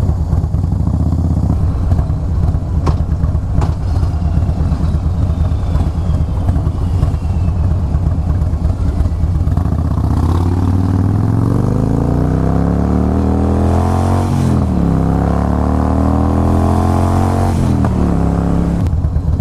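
Harley-Davidson Fat Boy S V-twin idling with a steady low rumble, then pulling away: revs climb, drop sharply at an upshift, climb again and drop at a second upshift near the end. Two sharp clicks sound in the first few seconds.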